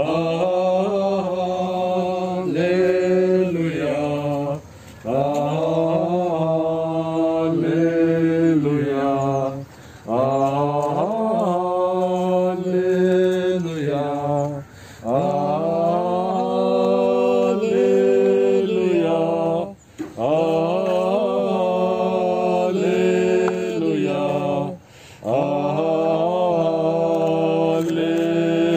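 Unaccompanied singing of a slow, chant-like hymn, in long held phrases of about five seconds each with short breaks for breath between them.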